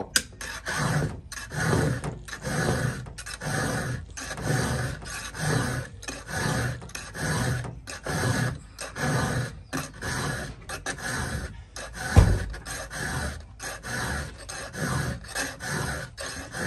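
Round chainsaw file rasping across the cutters of a 3/8-pitch, .050-gauge skip-tooth saw chain, in even hand strokes about four every three seconds. There is a single dull thump about twelve seconds in.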